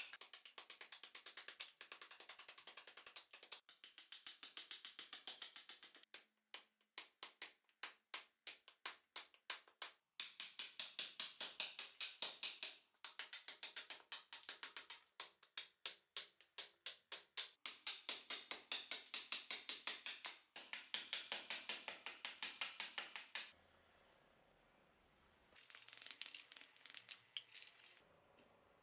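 Hatchet chopping a birch axe-handle blank on a wooden chopping block: fast, even chops, about four or five a second, in runs broken by short gaps. Near the end the chopping stops and the blade is heard more faintly, shaving the wood.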